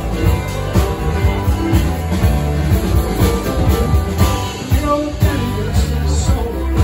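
A live band playing: electric bass, drum kit, electric guitar and keyboard, with a steady drum beat.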